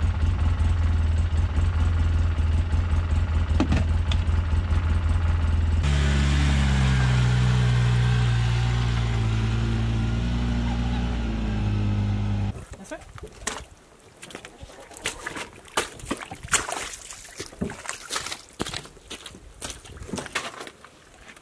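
Side-by-side utility vehicle's engine idling steadily, then pulling away about six seconds in, its engine note shifting as it drives. About halfway through, a cut to quieter irregular knocks and clunks of wooden logs being handled.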